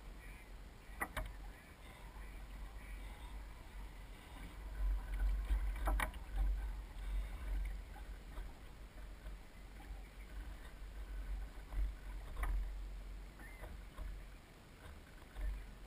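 Soling 1 meter model sailboat under sail, heard from a camera on its deck: an uneven low rumble of wind and water against the small hull, heaviest about five to seven seconds in, with a few sharp knocks.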